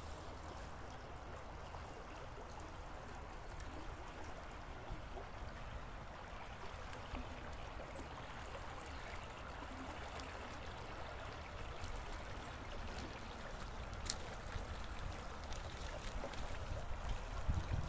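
Shallow river running over gravel and pebbles: a steady rush of flowing water.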